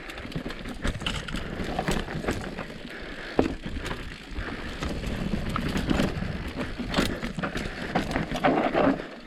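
Mountain bike descending a rough downhill trail: tyres rolling over dirt and rocks, with the bike clattering in frequent short clicks and knocks. A sharper knock comes about three and a half seconds in.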